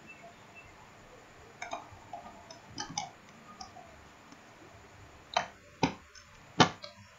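Computer mouse clicking: a few light clicks, then three louder, sharper clicks near the end.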